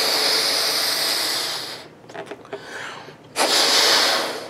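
A balloon being blown up by mouth: two long breaths blown into it, the first lasting until nearly two seconds in, the second starting a little past three seconds and lasting about a second, with a short pause between.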